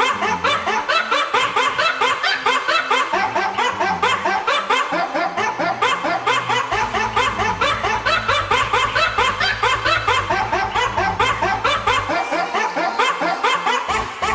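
Continuous rapid laughter, a steady string of short 'ha' sounds about five a second. A low steady tone joins underneath from about halfway through and stops a couple of seconds before the end.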